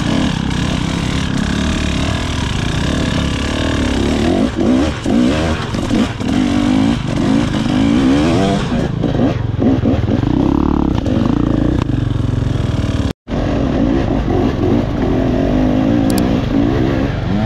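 KTM EXC 300 TBI two-stroke enduro engine revving up and down as the bike is ridden over rough trail, with clattering from the bike. The sound cuts out for an instant about two-thirds of the way through.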